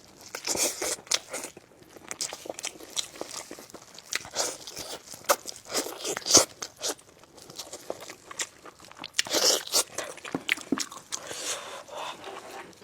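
Close-miked eating of braised spicy lamb chops: irregular biting, crunching and wet chewing, the loudest crunch about six seconds in.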